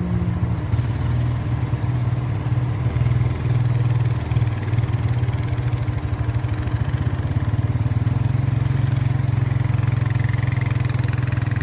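A vehicle engine idling steadily, a low pulsing rumble with a constant hum over it.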